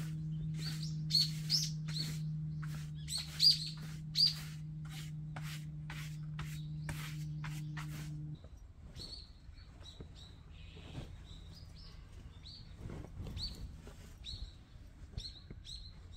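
Wild birds chirping loudly in quick repeated calls, over a steady low hum that cuts off about halfway through. After that the chirps go on more faintly, with soft rustling of bedding being handled.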